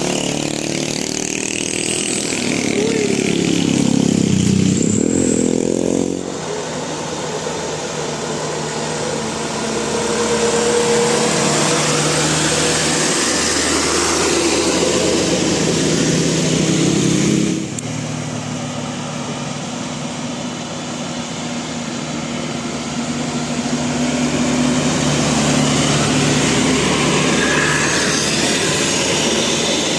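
Bus and road traffic running, with a pitched drone and a pitch that swoops down and back up a few seconds in. The sound changes abruptly twice, about six and about seventeen seconds in.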